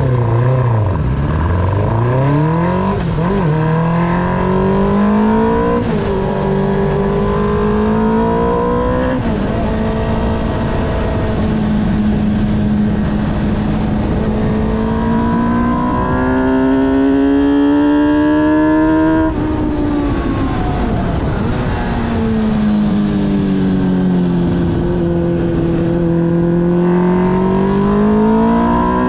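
Onboard sound of a motorcycle engine at speed on a race track. The engine note climbs through the gears, with quick upshifts about three, six and nine seconds in, then holds high and rises further. About nineteen seconds in it drops suddenly as the rider shuts off for a corner, sags lower for several seconds, and climbs again near the end.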